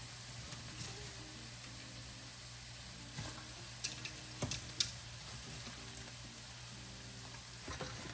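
Shredded cabbage sizzling steadily in a hot skillet of butter, oil, a little chicken broth and onions, with a few sharp clicks scattered through.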